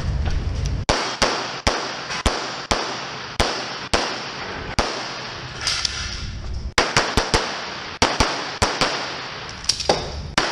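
Rapid pistol fire: about eighteen sharp shots in uneven strings, some in quick pairs, with a pause of about two seconds midway.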